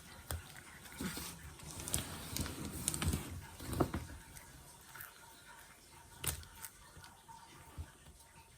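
Close handling noises: rustling with light knocks and sharp clicks, busiest in the first half, then a couple of isolated clicks later on.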